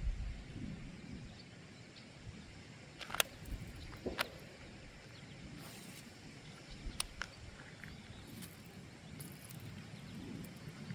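Distant gunshots: a few sharp cracks against the outdoor background, the two loudest about a second apart a third of the way in, then a few fainter ones later.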